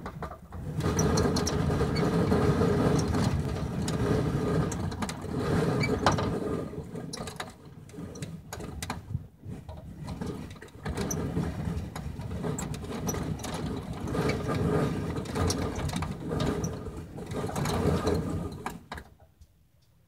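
Strong wind gusting against a fiberglass Casita travel trailer, heard from inside: a rushing noise that swells and eases in waves, with rattling and clicking from the shaken trailer and a steady drone, dying away near the end.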